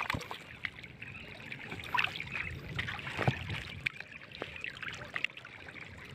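Water sloshing and trickling, with scattered small splashes and knocks.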